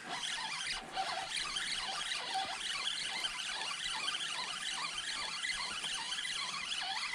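Spinning reel being cranked steadily, reeling in a hooked small zander.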